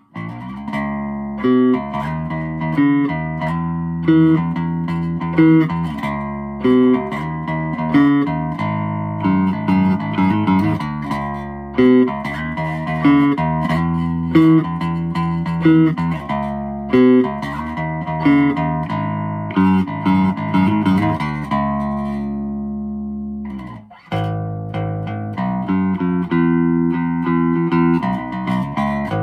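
Fernandes Jazz Bass electric bass played fingerstyle: a repeating line of plucked notes. The bass has just been fret-levelled and set up. Near the end one note is held, there is a brief break, and the line starts again.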